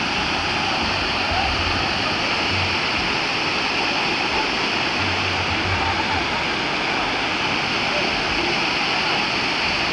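Waterfall rushing steadily, its falling water making an even, unbroken roar.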